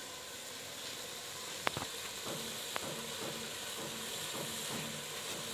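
A pot of fish curry cooking over an open wood fire: a steady hiss and sizzle, with two sharp clicks about two and three seconds in.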